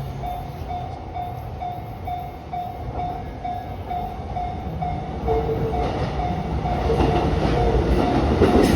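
Japanese railway level-crossing alarm bell ringing in a steady clang about twice a second. From about five seconds in, an approaching electric train grows louder beneath it.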